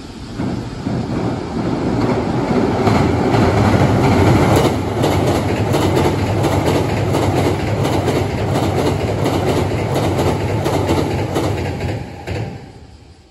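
Ten-car Hankyu 8000 and 7000 series electric train passing at speed over a railway bridge, wheels clattering rhythmically over the rail joints. It swells about half a second in and fades away near the end.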